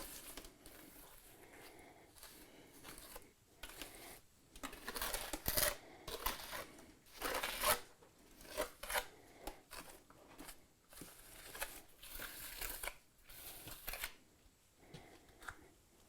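Irregular scraping strokes of a mason's trowel working mortar against masonry, each lasting a fraction of a second, with short pauses between.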